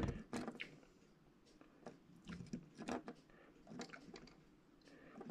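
Scattered light clicks, taps and small scrapes of fingers handling and setting down a small N-scale model conveyor belt, with the sharpest click right at the start.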